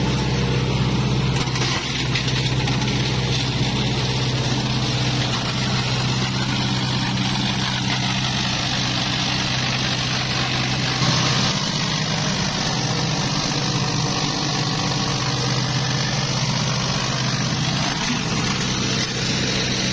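G-20 plastic shredder running steadily: a constant low machine hum with a broad rushing, grinding noise over it.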